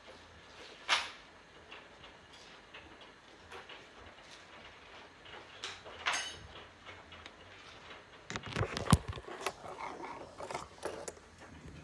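Handling noise: scattered light knocks and clicks of small objects being moved about on a wooden table, with a quick run of clicks and rattles about eight seconds in, the loudest near nine seconds.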